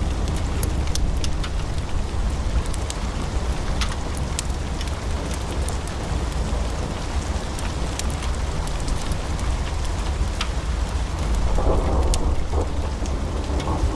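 Wood fire burning in a fireplace: a steady low roar of the flames with many scattered sharp crackles and pops from the burning logs.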